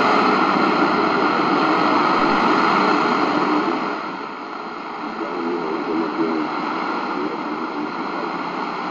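Shortwave static and hiss from the C.Crane CCRadio SW's speaker, tuned to 5025 kHz with no clear station, only a faint wavering sound beneath the noise. The hiss drops somewhat about four seconds in as the AM RF gain knob is turned down.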